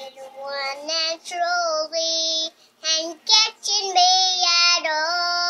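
A four-year-old girl singing in short phrases with brief breaks, her words unclear, then holding one long steady note from about four seconds in.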